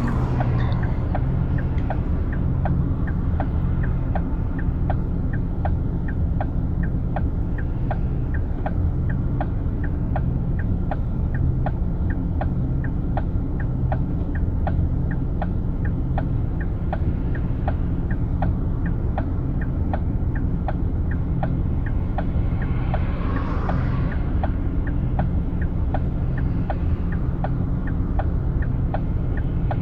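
Car cabin with a steady engine and road rumble and a turn-signal indicator ticking evenly, about twice a second. A short swell of hiss rises and fades about two-thirds of the way through.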